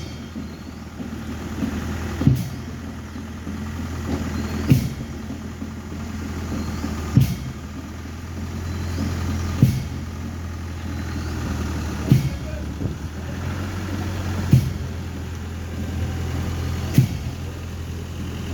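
A vehicle engine running steadily at a low hum, with a sharp knock or beat repeating evenly about every two and a half seconds.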